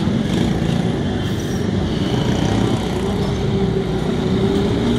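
Steady road traffic noise, with a faint steady engine hum coming in about two seconds in.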